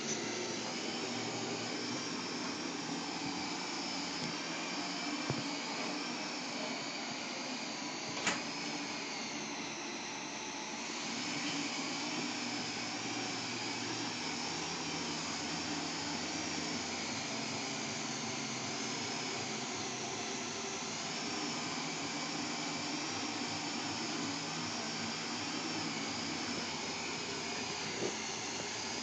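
Eurobots Cleanbot W28 window-cleaning robot running on the glass: a steady motor whir with a high whine that wavers up and down. The whine dips briefly about ten seconds in, and there are a few light clicks.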